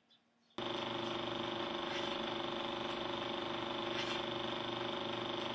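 A steady drone of several held tones from the film's soundtrack starts abruptly about half a second in, with faint ticks roughly once a second.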